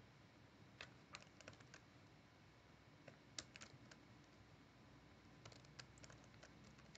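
Faint computer keyboard typing: scattered keystroke clicks in three short bursts, the first about a second in, the next around three and a half seconds, and the last near six seconds.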